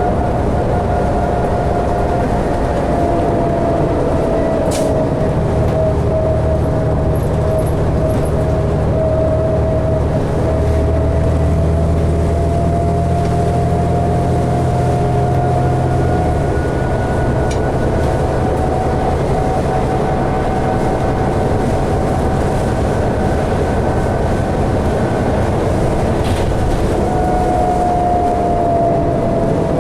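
Interior ride noise of a 2012 New Flyer D60LFR articulated diesel bus under way: a steady rumble and road noise with a drivetrain whine that dips and rises in pitch. The deeper engine hum swells for about ten seconds in the middle, and a few sharp clicks or rattles sound now and then.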